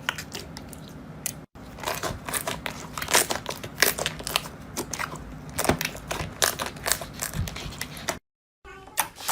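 Slime being squeezed and pressed by hand, giving a quick, irregular run of crackling, popping clicks. The sound drops out briefly about a second and a half in and again near the end.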